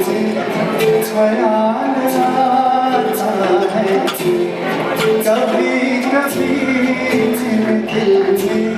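Music with singing over regular percussion hits; a deeper bass comes in about six seconds in.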